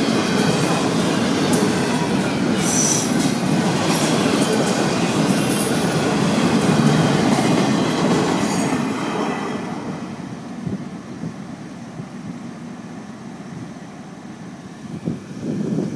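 Florida East Coast Railway freight train of double-stack container cars rolling past close by: a steady rumble of wheels on rail with brief high-pitched squeals. The noise fades away about nine seconds in as the end of the train goes by.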